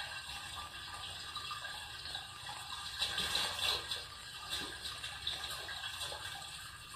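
Water sloshing and gurgling in the sewer below, heard up through a bathroom floor drain, swelling louder about three seconds in.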